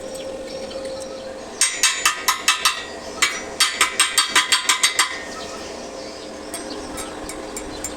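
Hammer rapping on steel in two quick runs of sharp, ringing strikes, about six and then about eleven, roughly six a second, ending about five seconds in.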